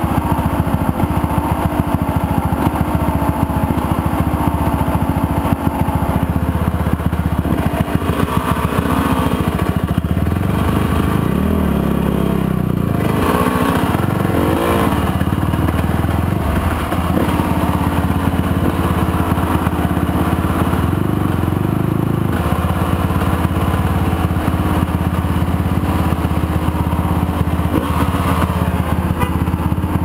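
Motorcycle engine running steadily, its revs falling and rising again between about eleven and fifteen seconds in.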